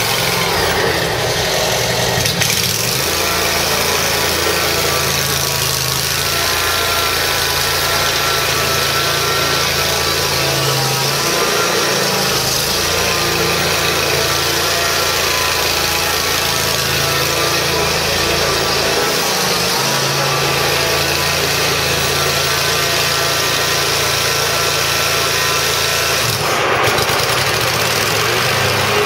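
John Deere 667A zero-turn stander mower's 23 hp Kawasaki V-twin engine running steadily, just after starting, with its sound shifting a couple of seconds in and again near the end.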